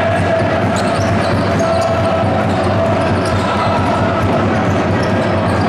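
Basketball game in a large sports hall: steady crowd noise with a basketball bouncing on the court.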